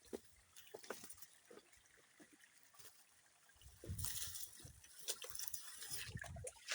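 Faint trickling and dripping water, with scattered small drips at first and a fuller, louder flow from about four seconds in.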